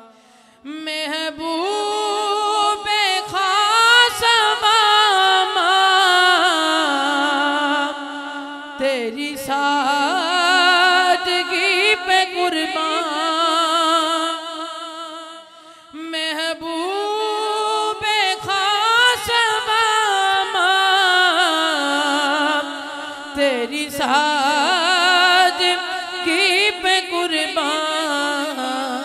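A young man singing a manqabat, a devotional praise song, into a handheld microphone. He sings in long, ornamented phrases with wavering pitch and breaks for breath about every seven or eight seconds.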